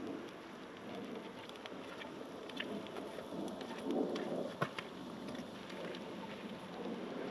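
Hissing and crackling of food cooking over a campfire, with scattered small clicks and one sharp knock about four and a half seconds in.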